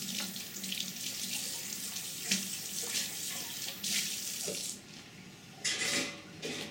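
Water running steadily, then stopping about five seconds in; a couple of short louder noises follow near the end.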